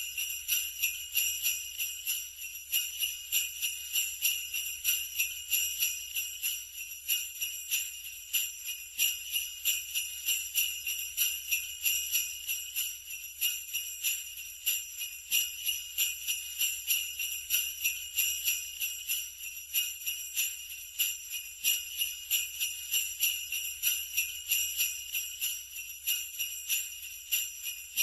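Sleigh bells jingling in a steady rhythmic shake, about two to three accented shakes a second, with a continuous bright metallic ring between them.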